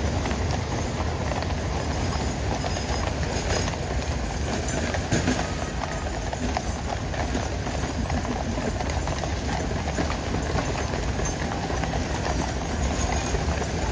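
Many horses' hooves clip-clopping in a steady, dense stream of overlapping hoofbeats, over a steady low rumble.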